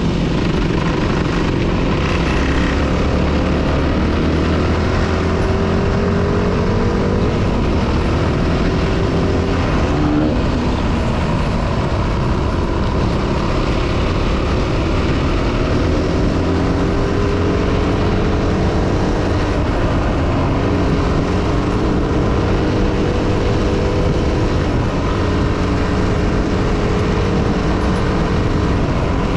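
Trail bike engine running steadily under way, its pitch drifting slowly up and down with the throttle, over a constant haze of wind and tyre noise on a gravel road.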